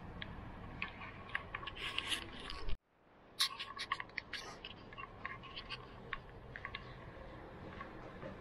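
Scattered light clicks and scrapes from someone handling things in a room, over a steady low hum. The sound cuts out briefly about three seconds in, and the clicks come thicker just after.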